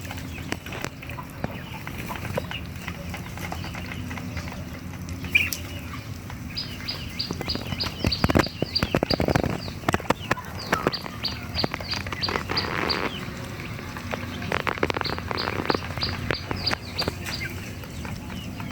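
Eleven-day-old ducklings peeping: three runs of short high chirps, about four or five a second, over scattered clicks and taps.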